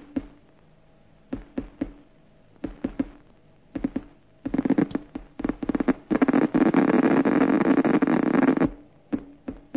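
A motor puttering in short uneven bursts of rapid pulses. About halfway through it runs on continuously and loudly for roughly four seconds, then breaks up into bursts again.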